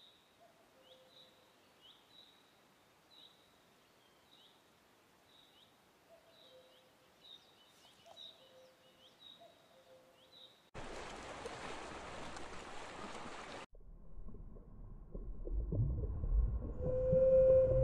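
A small bird chirping over and over, short high notes about once a second, against faint outdoor ambience. About eleven seconds in, a burst of steady hiss lasts about three seconds. Then a low underwater rumble swells, and a whale's long pitched call begins near the end.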